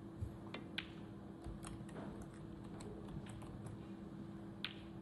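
Computer keyboard typing: scattered, irregular light clicks over a steady low hum.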